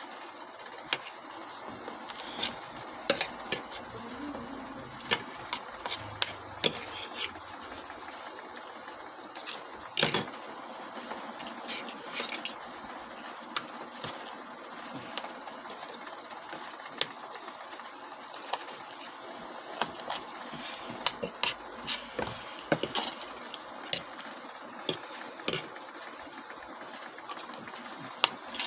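Forks and spoons clinking and scraping against plates while eating, in irregular sharp clicks, over a steady background noise.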